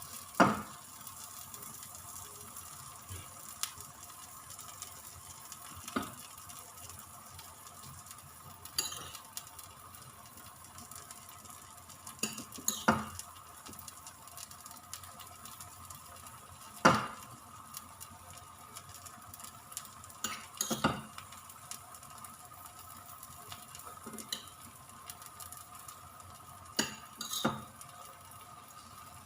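Egg frying in oil in a pan with a faint steady sizzle. A utensil knocks and clinks against the pan or bowl every few seconds as sautéed vegetables are spooned onto the setting omelette.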